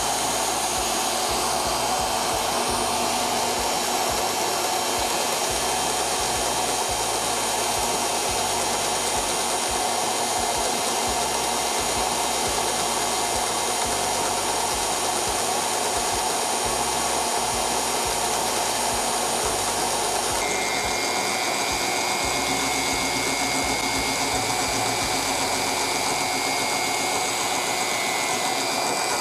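Electric drill motor running steadily, spinning a cork carburetor float while a sanding block is held against it to bring it down to diameter. The whine's upper tones shift about twenty seconds in.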